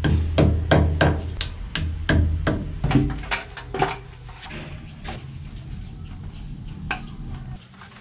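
Claw hammer tapping a plastic wall plug into a drilled hole in a concrete wall: a quick string of strikes, about three a second, for the first four seconds or so, then a single knock near the end.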